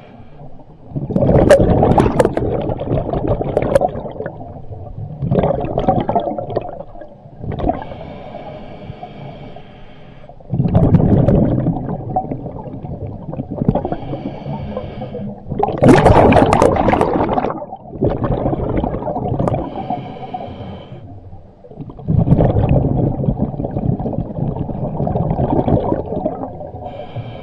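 Scuba diver breathing through a regulator underwater. Loud bubbling exhalations of two to three seconds come about every five seconds, with quieter inhalations between them.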